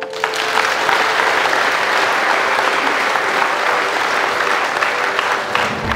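Audience applauding: dense, steady clapping that starts at once and fades out near the end.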